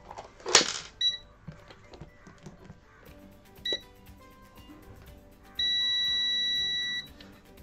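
A digital multimeter set down with a thud, then beeping: two short beeps and one long steady beep of about a second and a half, as it is switched on to check a faulty power switch. Faint music underneath.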